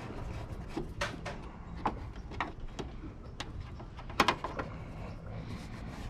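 Scattered metallic clicks and knocks of hand tools working on a scrap motor, with a louder clank just after four seconds in.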